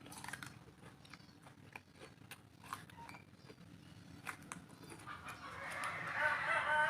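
Mouth-close chewing and crunching of food as a run of small clicks. About five seconds in a rooster crows, one long call that is the loudest sound.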